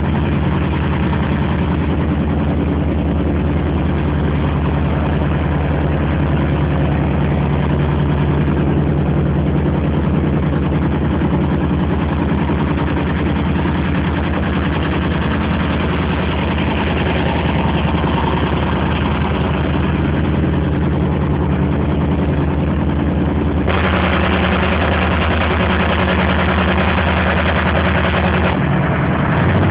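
Claas Jaguar 695 SL forage harvester running steadily under load while harvesting maize, with a deep, even diesel note. About three-quarters of the way through, a louder, brighter rushing noise joins the engine.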